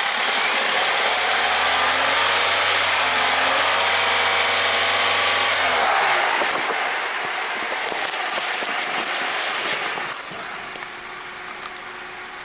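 Opel Z14XEP 1.4-litre four-cylinder petrol engine running steadily at raised revs, heard close up with the bonnet open. About six seconds in it becomes quieter and stays quieter to the end.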